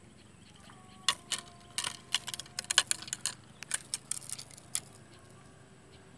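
A quick, irregular run of sharp clicks and rattles of small hard objects being handled, starting about a second in and stopping just before the end.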